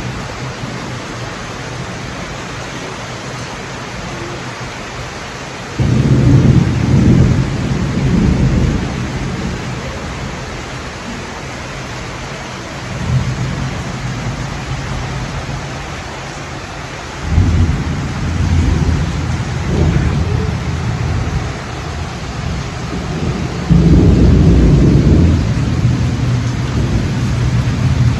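Heavy rain pouring steadily, broken by four loud, low rumbles of thunder a few seconds long each, the first about six seconds in and the last a few seconds before the end.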